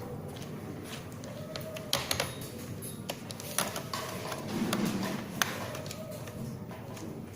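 A laptop's plastic casing being handled during reassembly: a few scattered sharp clicks and taps, about four in all.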